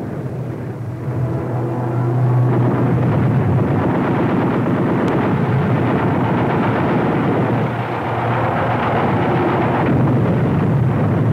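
Air-raid battle sound effects laid over archival film: a continuous rumble of explosions and gunfire that grows louder about two seconds in.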